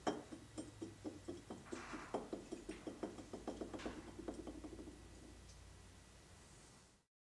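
A rapid, even series of light clicks or knocks, about five a second, that dies away over the last couple of seconds and then cuts off.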